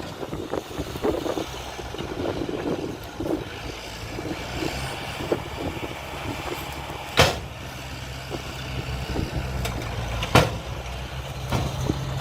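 Heavy diesel construction machinery running steadily, with irregular knocks and rattles in the first few seconds and two sharp bangs about three seconds apart in the second half.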